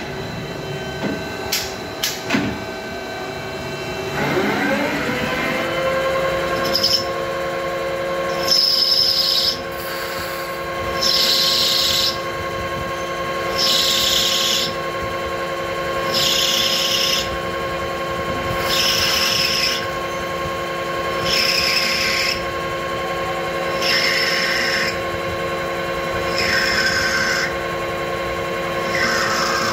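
CNC lathe cutting bronze bar stock on a G71 roughing cycle. A few clicks come near the start, then the spindle spins up with a rising whine about four seconds in and settles into a steady whine. Over it, a hiss of cutting recurs about every two and a half seconds as the tool takes pass after pass.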